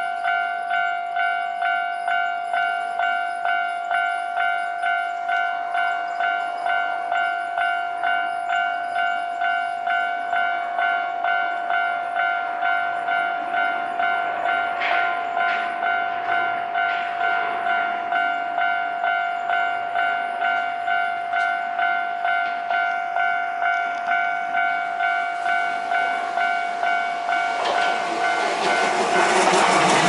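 Japanese railway level-crossing warning bell dinging steadily, about one and a half strikes a second. Near the end a Hankyu electric commuter train comes up and passes the crossing, and the rising noise of its wheels on the rails swamps the bell.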